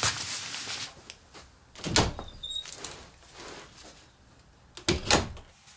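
Door with a lever handle being worked: light clicks and two solid knocks, one about two seconds in and a louder one about five seconds in, as the latch is turned and the door opened and shut.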